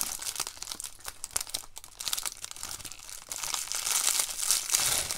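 Crinkly plastic packaging being handled and crumpled, a continuous crackle of many small clicks that grows louder near the end.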